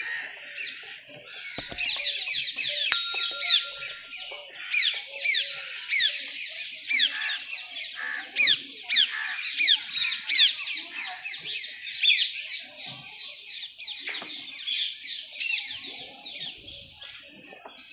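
A chorus of many birds chirping in trees: quick, high, falling chirps overlapping one another throughout, thinning a little near the end.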